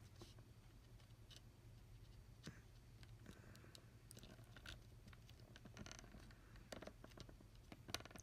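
Near silence: a low steady hum with faint scattered ticks and scratches from a small soldering iron tip being worked against a circuit-board joint.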